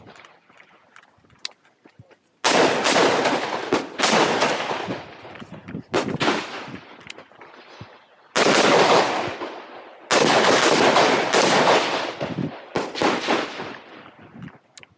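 A string of rifle shots fired at an irregular pace, some in quick pairs, each followed by a long echoing tail. They start about two and a half seconds in.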